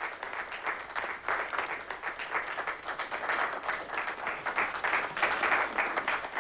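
A small group of people applauding steadily by hand.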